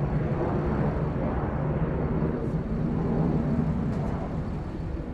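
Aeroplane engine noise: a steady low rumble, swelling slightly in the middle and easing a little near the end.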